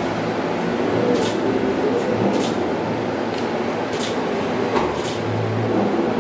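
Steady, echoing background din with several short, sharp clicks spread through it.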